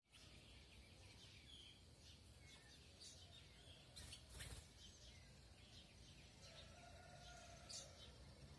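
Birds chirping: many short, high chirps and calls, faint over a low steady background hum, with a brief noisy rustle about four seconds in.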